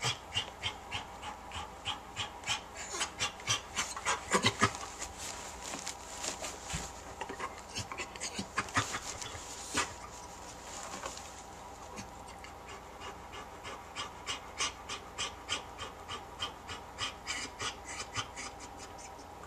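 German Shepherd dam panting rapidly while in labour, about three breaths a second, easing briefly past the middle before picking up again.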